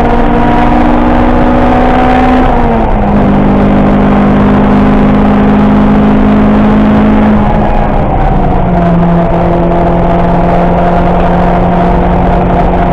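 Car engine running hard at high revs, heard from inside the cabin over tyre and wind noise. Its pitch steps down slightly about three seconds in and again around seven to eight seconds in, and otherwise holds nearly steady.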